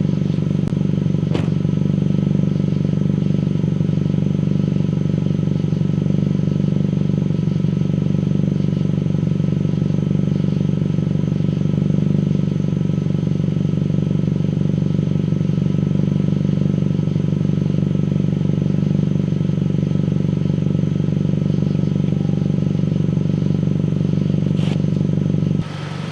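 Honda Civic engine idling steadily, a constant low hum, with a couple of faint clicks. The hum drops abruptly in level near the end.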